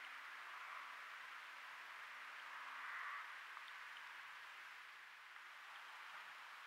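Faint steady hiss of a trail camera's microphone at night, with a faint low hum underneath; no distinct event stands out.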